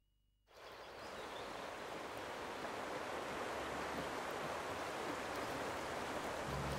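River water running over rocks, a steady rushing that fades in about half a second in and slowly grows louder. A low steady hum joins it near the end.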